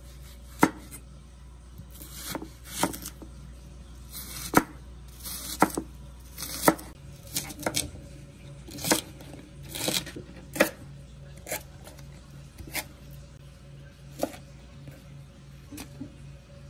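Kitchen knife cutting vegetables on a cutting board: sharp, irregular knocks about a second apart, mixed with short slicing strokes.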